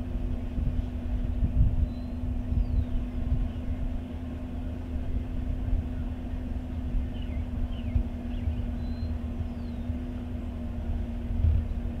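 Truck engine idling with a steady low hum and rumble, with a few faint, short bird chirps over it.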